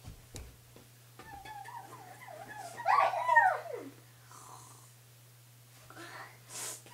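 A child's wordless vocal noises: a quiet drawn-out sound, then a louder yelp that falls in pitch about three seconds in. A steady low hum runs underneath.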